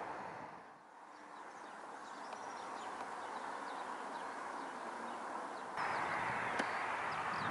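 Steady distant hiss of a Boeing 737-800's jet engines as it rolls out after landing, with small birds chirping many times over it. The engine noise dips about a second in, builds back slowly and steps up suddenly near the end.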